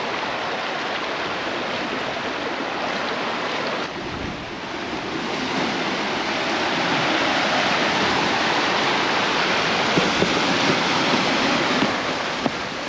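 Ocean surf washing onto a beach: a steady rush of wave noise.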